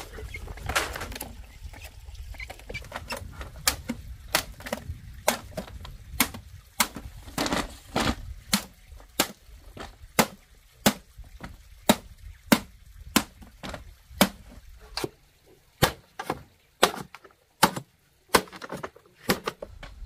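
Machete chopping green bamboo poles: a long run of sharp strikes, about one or two a second.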